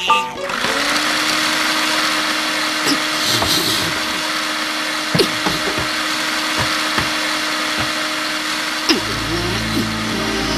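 Vacuum cleaner running, a steady rushing hiss over a constant motor hum, with a few brief sliding sounds over it. Music comes in about nine seconds in.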